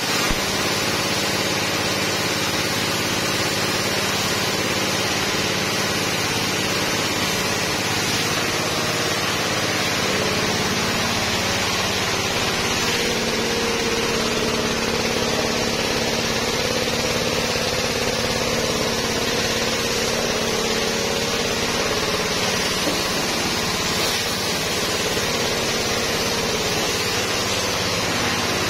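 Pressure washer running steadily, its pump motor humming under the hiss of the spray jet from the lance.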